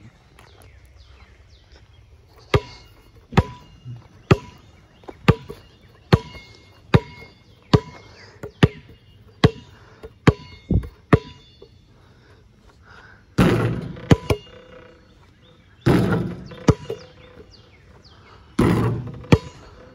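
A basketball bouncing on asphalt about once a second, each bounce a sharp smack with a short hollow ring. Near the end come three louder, longer hits a couple of seconds apart.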